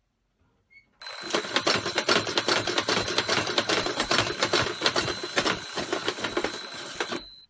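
Alarm clock ringing loudly: a dense, rapid ringing starts about a second in and cuts off suddenly near the end.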